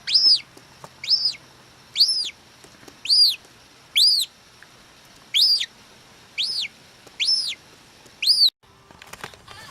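Gull chick peeping over and over, about one high call a second, each rising and falling in pitch: begging for food. The calls stop near the end.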